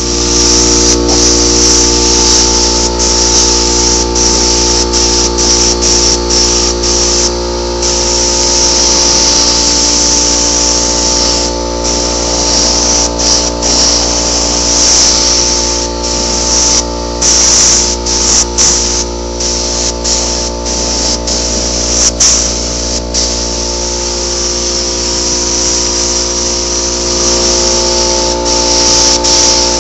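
Paint spray gun spraying in long hissing passes that break off briefly several times, over a steady hum of several tones.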